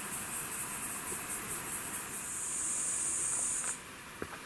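Insects buzzing in the bush: a steady, very high-pitched pulsing buzz, with a second, slightly lower buzzing call joining a little after two seconds in and stopping over a second later.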